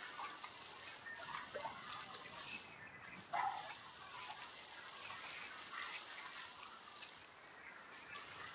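Faint sea water splashing and lapping around a kayak, with a few short high calls; the loudest call comes about three and a half seconds in.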